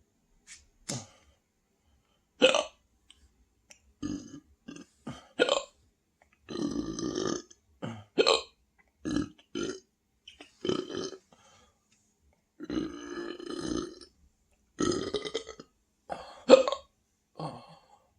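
A person belching over and over on an overstuffed stomach: more than a dozen burps, mostly short with a few longer drawn-out ones, the loudest about two and a half seconds in and again near the end.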